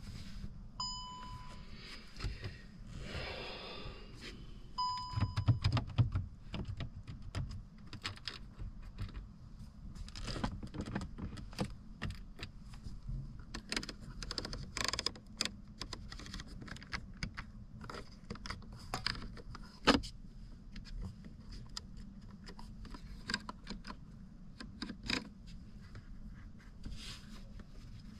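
Two short electronic beeps, one about a second in and another about five seconds in, then a long run of irregular light clicks and rattles, like keys or small parts being handled, over a steady low hum.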